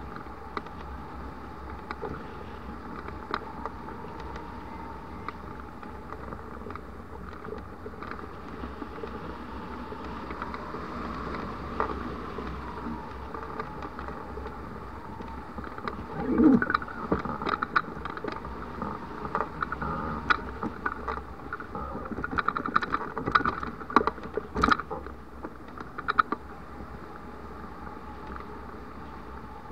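Airflow rushing over a camera mounted on a hang glider in flight, a steady low rumble of wind on the microphone. From a little past halfway it turns gusty, with a run of sharp, louder bursts and knocks.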